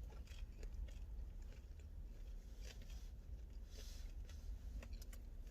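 Close-up mouth sounds of someone chewing and biting pizza: wet clicks and crunches, with a couple of louder crunchy bites a little before and after the middle.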